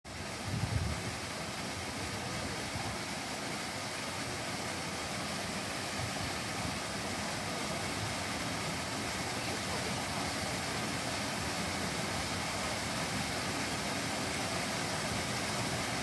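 Small waterfall running steadily down a rock face: a continuous, even rush of falling water. A brief low bump under a second in.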